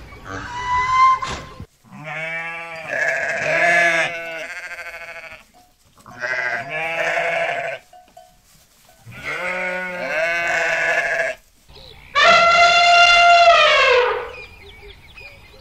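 Sheep bleating: three quavering bleats of a second or more each, then a longer, louder animal call near the end that drops in pitch as it ends.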